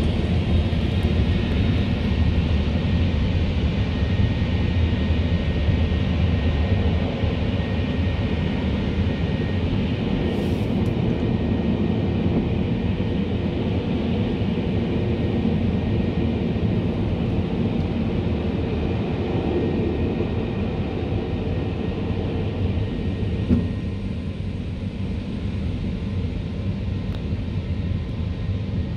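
Drive-through car wash machinery heard from inside the car: the big rotating cloth brushes and their drive run with a steady low rumble over the roof. A single knock comes a little before the end, after which it runs slightly quieter.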